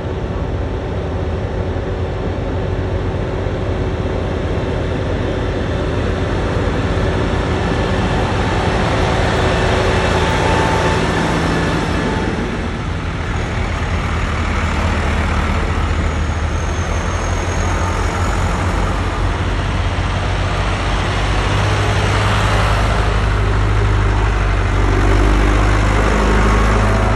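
A line of farm tractors driving past one after another, their diesel engines running with a steady low drone. It grows louder near the end as a tractor passes close by.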